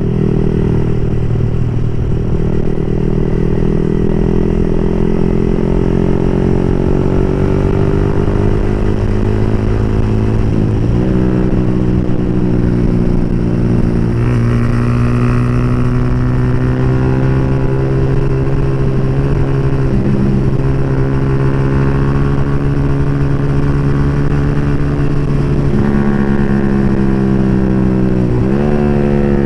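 A Yamaha R15 v3's 155cc single-cylinder engine running steadily through an open aftermarket exhaust. Its pitch dips and recovers briefly twice, about eleven seconds in and near the end.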